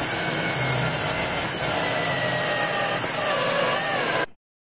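Power drill boring a pocket hole into wood with a stepped bit through a Kreg pocket-hole jig, running steadily at full speed with a faint whine, then stopping suddenly near the end.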